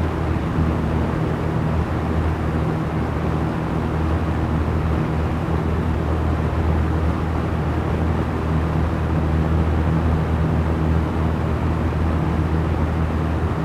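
Small fan running steadily: a low hum with an even rush of air over it.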